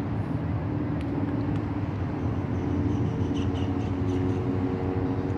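A steady low outdoor rumble, with faint distant shouts from about two seconds in.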